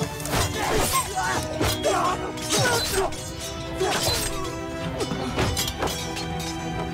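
Film-trailer soundtrack: dramatic music under sword-fight sound effects, with several sharp hits and clashes.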